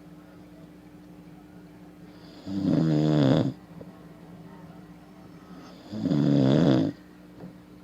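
A man snoring: two loud, pitched snores, each about a second long, some three and a half seconds apart.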